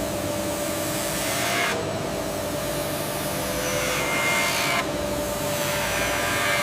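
Steady machine noise: a hiss over a low hum, the hiss easing off twice and swelling back.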